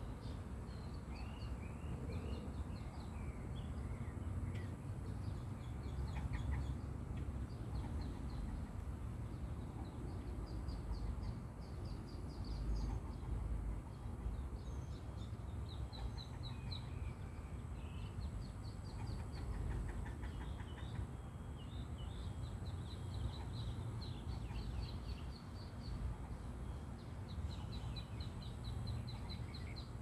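Muscovy ducklings peeping: many short, high chirps, often in quick runs, over a steady low rumble.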